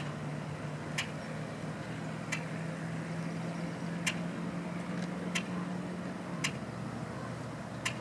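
Great-tailed grackle giving a series of sharp, dry clicks, seven of them spaced a second or so apart, over a low steady engine hum from a vehicle that stops about six seconds in.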